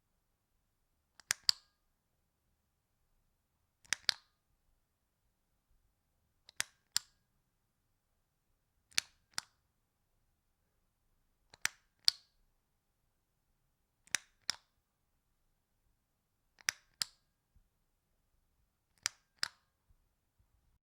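Lamp switch clicking, each operation a quick double click. It repeats eight times, about every two and a half seconds.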